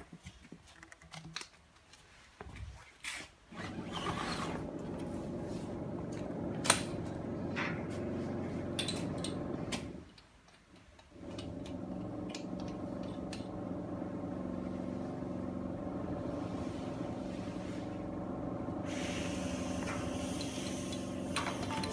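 Electric motor of a window-film roll cutting machine running with a steady hum. It starts about three seconds in after a few clicks and knocks, cuts out for about a second near the middle, then runs again, with a hiss added near the end.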